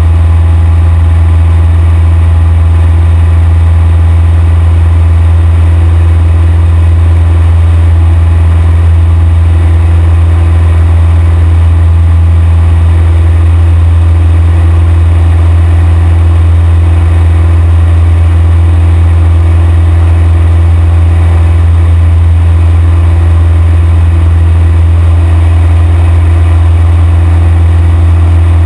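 Cessna 172 Skyhawk's piston engine and propeller running steadily in flight, heard loud from inside the cabin as an unbroken drone with a strong low hum.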